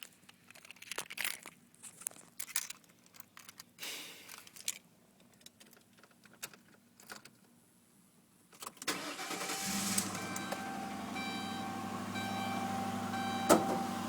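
Keys rattling and scattered clicks, then about nine seconds in the Ford Crown Victoria Police Interceptor's V8 starts and settles into a steady idle, with short regular ticks over it and one sharp click near the end.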